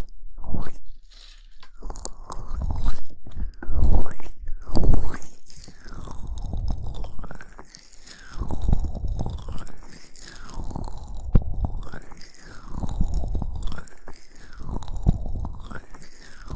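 Hands rubbing and massaging the ear of a binaural microphone right against the mic, a close, crunchy rustling. Loud irregular scuffs in the first few seconds give way to slow, even strokes about once a second.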